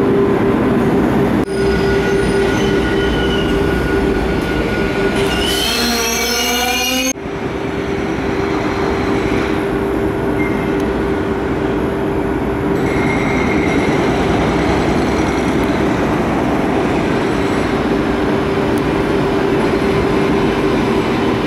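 Renfe Cercanías electric multiple units running on station tracks, including a Civia series 465, with a steady hum and rumble of wheels on rail. About six seconds in, the wheels give a brief squeal with several wavering pitches.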